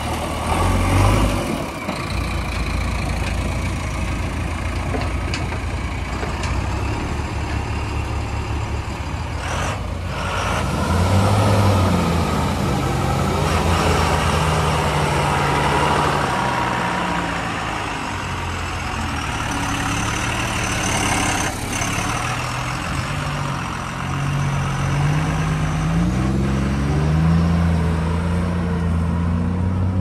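Loaded Tata tipper truck's diesel engine pulling away under load. Its pitch climbs, drops back and climbs again as it shifts up through the gears. There are two short sharp sounds, one about ten seconds in and another a little past twenty seconds.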